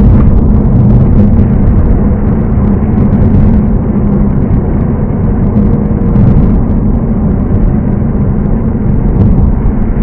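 Car driving at steady speed: continuous engine and tyre-on-road noise, a low rumble with a steady hum that holds even throughout.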